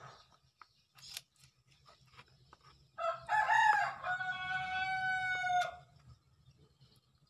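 A rooster crows once, a single call of nearly three seconds starting about three seconds in, broken at first and then held steady before cutting off. Faint scraping clicks of a knife scaling a fish on a cutting board come before and after it.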